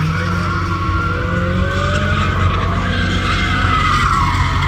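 A Dodge Hellcat's supercharged Hemi V8 running hard through a burnout, its rear tyres squealing continuously with a wavering pitch.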